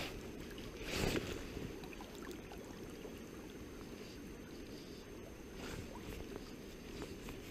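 River water running steadily, with a brief whoosh about a second in.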